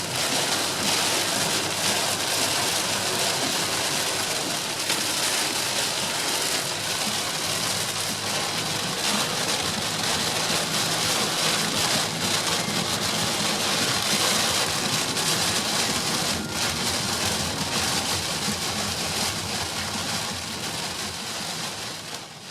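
Heavy rain hitting a car driving on the motorway, heard from inside the cabin, mixed with tyre and engine noise: a steady hiss.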